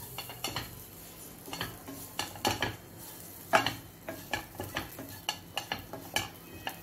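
Wooden spatula stirring and scraping dry instant oats and chopped vegetables around a nonstick frying pan, in irregular strokes about two a second, the loudest about three and a half seconds in, as the oats are roasted with the vegetables.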